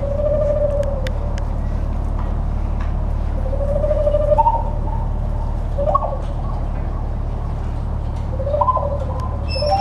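Small hand-held vessel flute blown into cupped hands, playing a few soft, pure hooting notes, some held and sliding upward, with a quicker run of notes near the end. A steady low hum runs underneath.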